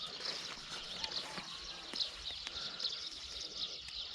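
Insects chirping in a steady high chorus, with a few faint clicks and rustles.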